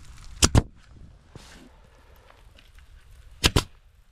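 Senco pneumatic stapler firing fasteners through vinyl siding starter strip into the wall: two sharp double cracks, one about half a second in and one about three seconds later.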